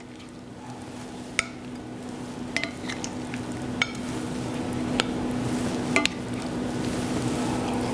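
Vegetable sauté sizzling softly in a red enamelled pan while a spatula scrapes through it and scoops it out, with several sharp clicks of the spatula against the pan and plate. A steady low hum runs underneath.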